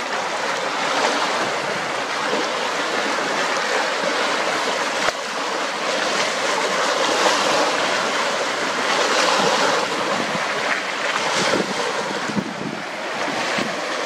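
Wind-driven choppy waves washing and breaking against rocks and debris at the water's edge, surging louder and softer in swells. Strong wind buffets the microphone, with rumbling gusts near the end.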